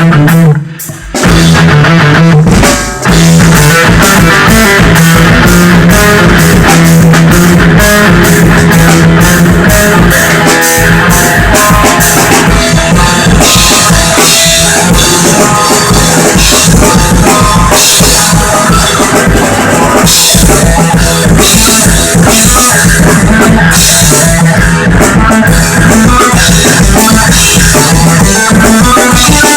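Rock band rehearsal with only drum kit and guitar playing an instrumental song, no bass or vocals. The playing breaks off briefly about a second in, then carries on, with the cymbals heavier in the second half.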